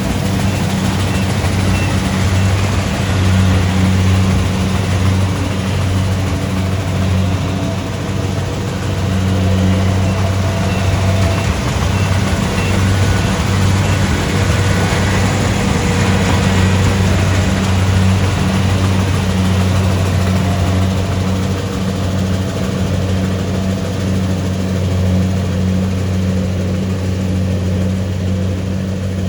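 Kubota DC-70 Pro rice combine harvester's diesel engine running steadily, a deep even drone.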